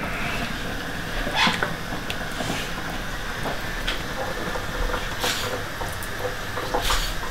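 Steel pan and colander handled at a kitchen sink after draining broccoli: a few light knocks and clinks, about five in all, over a steady low hiss.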